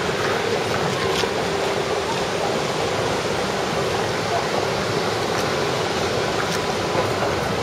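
Steady, even rushing ambience of a large airport terminal hall, with a few faint clicks.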